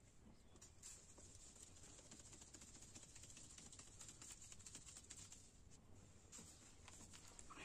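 Faint, rapid soft patter and scratching of flour being worked and shaken by hand through a wooden-rimmed mesh sieve onto a metal tray.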